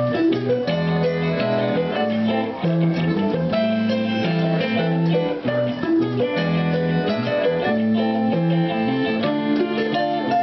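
A small live band playing an instrumental tune: accordion chords held under plucked and strummed guitars, with an electric guitar and a small plucked string instrument.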